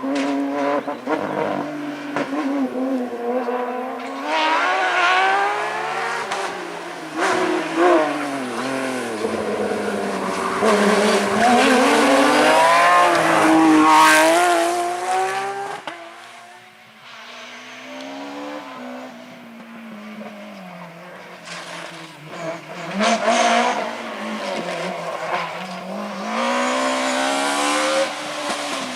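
Rally car engines under hard acceleration, the pitch repeatedly climbing and dropping through gear changes and lifts off the throttle. The sound swells to its loudest about halfway through, falls away, then builds again near the end.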